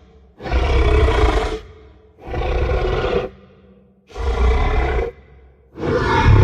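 Dinosaur roar sound effects for a Yutyrannus, played one after another: three growling roars of about a second each, with a fourth starting near the end.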